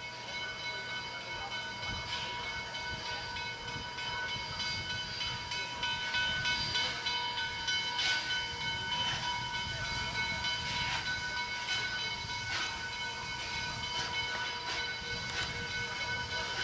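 Pennsylvania Railroad 0-6-0 steam locomotive working slowly, with exhaust chuffs and steam hissing that grow a little louder from about two seconds in as it draws nearer. Several steady high tones ring underneath the whole time.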